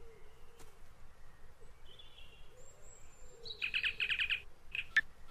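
Electronic chirping from a Star Trek-style universal translator as it is switched on: a rapid trill of about ten beeps a second lasting under a second, then two short chirps.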